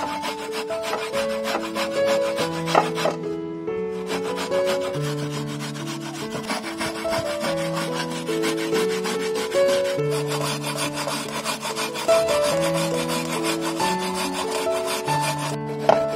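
Mature coconut flesh grated by hand on a punched-metal grater: a continuous rasping scrape of quick strokes, with background music of melodic plucked notes underneath.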